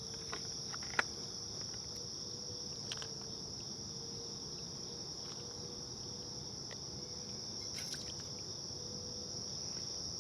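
Steady, high-pitched chirring of insects, with a few faint clicks.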